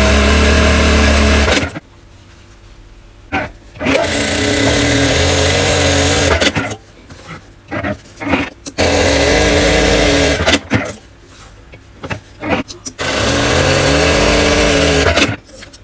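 Electric sewing machine stitching in four short runs of about two seconds each, its motor speeding up at the start of each run, with small clicks in the pauses between.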